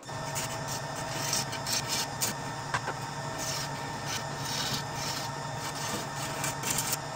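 Wood lathe running with a hand-held turning tool cutting a small spinning wooden piece: a steady motor hum under a scraping hiss that swells and fades irregularly as the tool bites.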